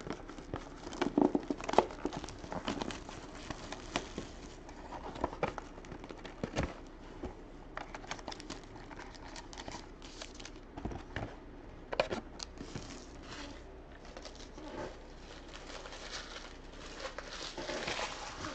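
Crinkling and rustling of football trading card packaging being handled and opened, with irregular light clicks and scrapes, busiest in the first few seconds and again about twelve seconds in.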